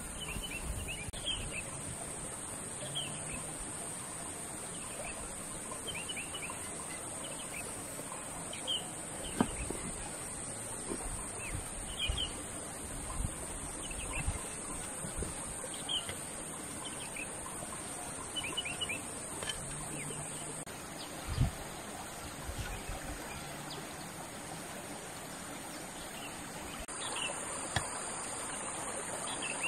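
Small birds chirping in short high calls scattered throughout, over a steady high hiss. A few sharp knocks, the loudest sounds here, come as clay bricks are set down and pressed into place on the soil.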